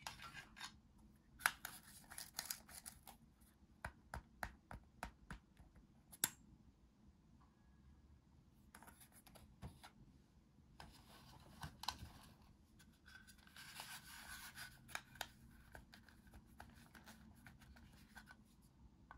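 Faint handling of hard plastic toy fruit and vegetable pieces. A run of sharp clicks and taps fills the first six seconds or so, then come several scratchy rasping stretches, each a second or more long, as the pieces are rubbed and fitted together.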